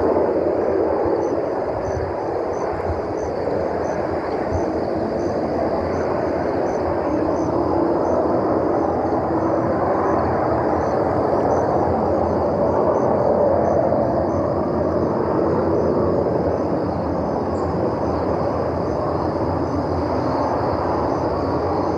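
Loud, steady roar coming from the night sky, starting and stopping abruptly. Crickets chirp steadily underneath.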